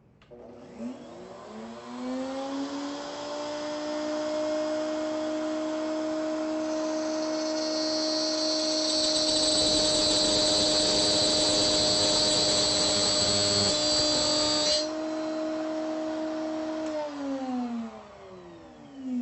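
Router in a router table spinning up to a steady whine. It cuts a slot in a wooden fence for about eight seconds with a loud hiss, then is switched off and winds down.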